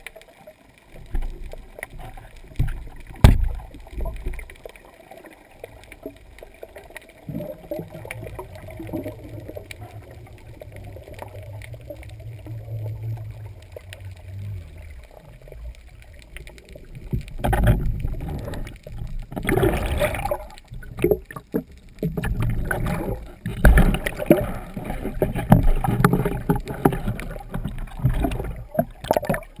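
Underwater water noise on a camera carried on a speargun: a sharp knock about three seconds in, and a low steady hum in the middle. From about halfway on, loud irregular sloshing and splashing as the gun rises to and breaks the water surface.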